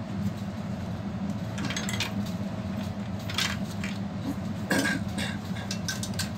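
Scattered metallic clicks and clinks of an HP ProDesk 400 G4 MT's sheet-metal chassis and drive cage being handled, the loudest a bit under five seconds in, over a steady low hum.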